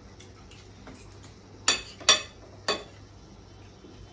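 Cutlery clinking against a plate of rice as the men eat: three sharp clinks in just over a second, near the middle, with a few fainter taps around them.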